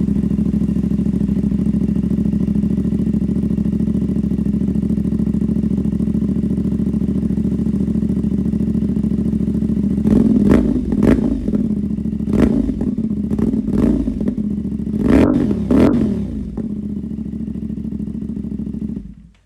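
CFMoto 450SR parallel-twin engine through a Villain aftermarket exhaust, idling steadily, then blipped about seven times in quick throttle revs that rise and fall before it settles back to idle. The engine stops abruptly near the end.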